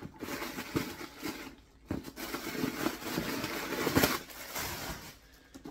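Rustling and crinkling as hands rummage inside a stiff crocodile-pattern handbag and handle its contents, with a few sharp knocks. There is a brief pause in the rustling just before two seconds in, and the loudest knock comes about four seconds in.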